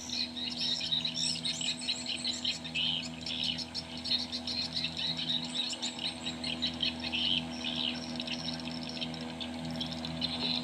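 Many small birds chirping and calling in quick, overlapping bursts, over a steady low hum.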